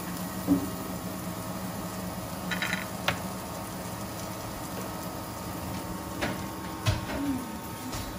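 Steady electrical hum of an induction cooktop running under a frying pan, with a few short sharp clicks.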